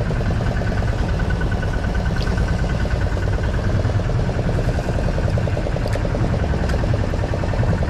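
Fishing boat's engine running steadily: a low drone with an even, pulsing hum above it.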